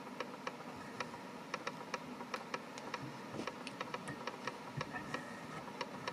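Faint, irregular light clicks and ticks, several a second, from hands working feather and thread at a fly-tying vise, over a faint steady hum.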